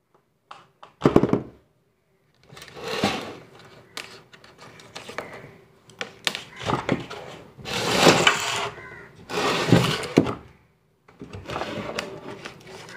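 Handling noise from a plastic bottle speaker enclosure being turned and gripped in the hands: irregular crackly rustles and sharp clicks and knocks, with short pauses between them.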